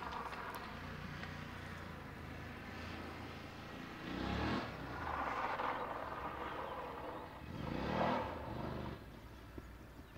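BMW F850GS's parallel-twin engine running as the motorcycle rides a dirt track, revving up twice, about four and eight seconds in, the second time the loudest, then easing off near the end.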